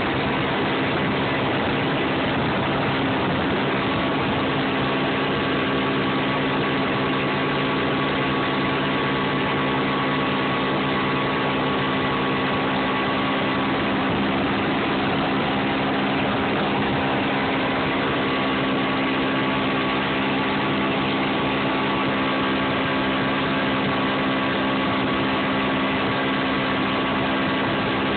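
Mercury outboard motor running steadily at speed under way, with the rush of water and wash from the boat's wake.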